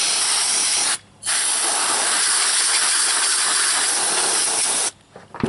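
Can of compressed air spraying in two bursts, blowing dust out of an old radio's tuning condenser: a short burst, a brief break about a second in, then a long steady burst that stops near the end. A short knock follows just after it stops.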